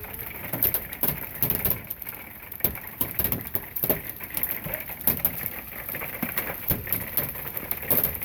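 Heavy hail pelting down: a steady hiss with many irregular sharp knocks as hailstones, some as big as golf balls, strike the ground and nearby surfaces.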